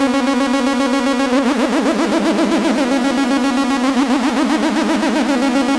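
Arturia MiniBrute analogue synthesizer holding a sustained note through a Line 6 M5 delay pedal, its tone starting to waver quickly from about a second and a half in.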